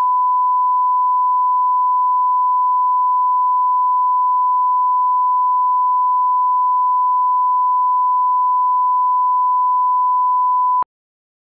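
Steady 1 kHz line-up reference tone played with colour bars at the head of a broadcast master tape, cutting off abruptly near the end.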